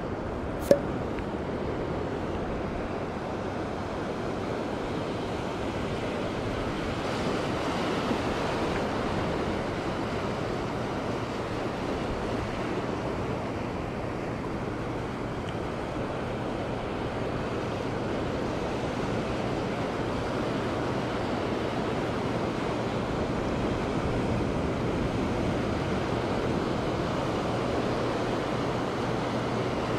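Ocean surf washing steadily up a sandy beach, swelling and easing slightly. A single sharp click about a second in.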